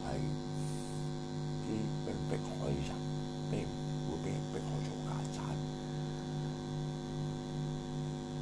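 Steady electrical hum: one constant low tone with a stack of fainter even tones above it, unchanging throughout, with a few faint short sounds over roughly the first five seconds.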